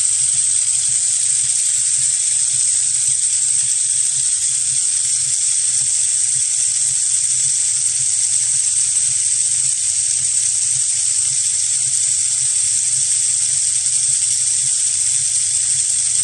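Mini Rotary Tumbler RT04 running a wet cleaning cycle: brass cartridge cases tumbling in soapy water with citric acid inside the turning plastic drum, a steady even hiss over a low motor hum.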